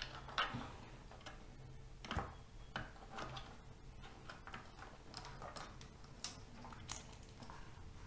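Faint, scattered clicks and taps of small laptop parts and cable connectors being handled during reassembly, the sharpest about two seconds in.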